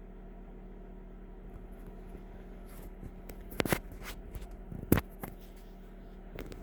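A few sharp clicks and light taps, the loudest a little over three and a half seconds in and again near five seconds, over a steady low hum.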